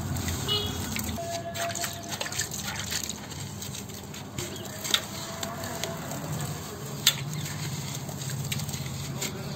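Wet sand clumps being squeezed and crumbled by hand in a basin of water: wet crunching and crackling grit with dripping and splashing water, and two sharper clicks about five and seven seconds in.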